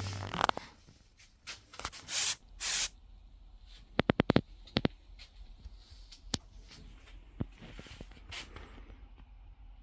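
Two short sprays from a pressurised nozzle, about half a second each, then a quick run of sharp clicks a little after the middle, with a few scattered clicks later on.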